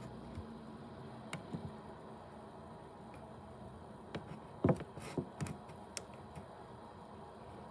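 A few scattered light clicks and taps over a steady faint background hiss, the loudest a little before five seconds in.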